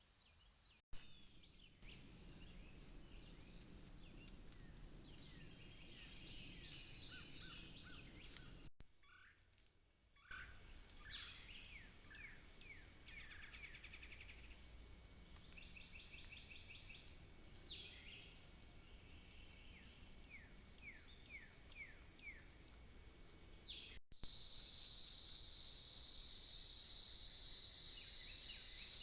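A steady, high insect drone with repeated short, descending bird chirps over it, recorded outdoors by a wildlife camera. The sound cuts out abruptly three times where short camera clips are joined, and the insect drone is louder after the last cut, near the end.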